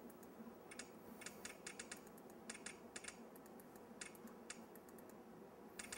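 Faint, irregular clicking of a computer keyboard and mouse being worked, the clicks coming in short runs of a few at a time.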